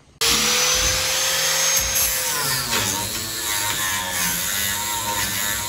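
Angle grinder with a flap disc grinding a steel car frame rail flat. It starts suddenly right at the outset, a steady whine over coarse grinding noise, and the whine drops slightly about two seconds in as the disc bears into the metal.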